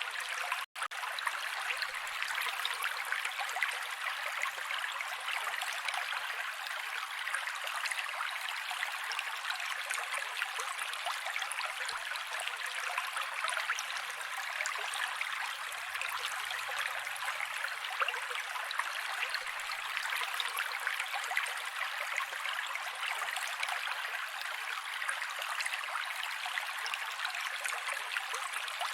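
Mountain creek water running and babbling over rocks, a steady rush with little bass, broken once by a split-second gap about a second in.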